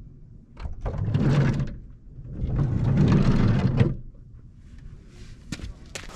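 A compact van's sliding side door being pulled open from inside, heard as two long sliding noises of over a second each in the first four seconds. A few sharp knocks follow near the end as someone steps out of the door.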